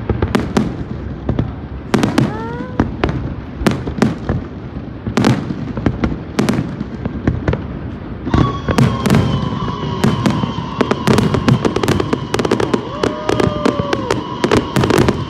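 Fireworks going off in a dense series of sharp bangs and crackling pops. About halfway through, a steady high tone joins and holds.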